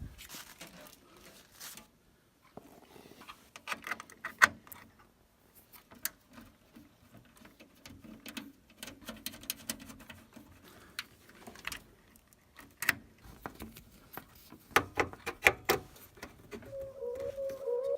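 Scattered small clicks, taps and rustles of hands fitting computer parts and cables. Music comes in near the end.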